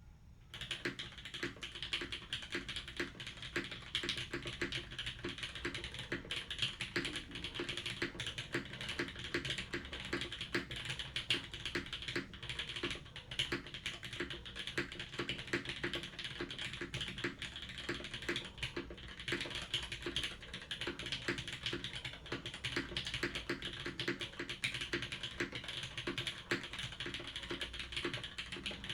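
Continuous typing on a Tomu BNE TKL mechanical keyboard with an aluminium plate, o-ring sandwich mount, GMK keycaps and lubed, filmed Cherry MX Red linear switches: a steady stream of keystroke clacks that starts about half a second in.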